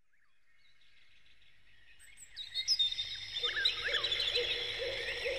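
Several wild birds singing and calling, with many quick chirps and trills. The sound fades in from silence and gets louder about two and a half seconds in, when a lower note repeating roughly twice a second joins.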